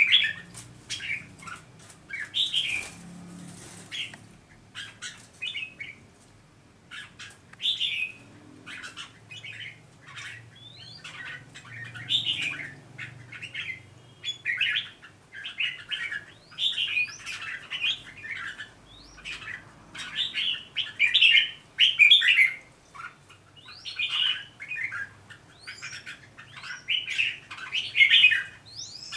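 Red-whiskered bulbuls calling, a busy string of short, sharp chirping notes in quick bursts that come and go, with a brief rustle about three seconds in.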